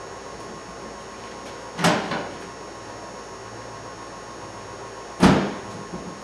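A pickup tailgate on newly fitted hinges being worked by hand, giving two metallic clunks about three and a half seconds apart, the second louder, as it swings against its stops and latches.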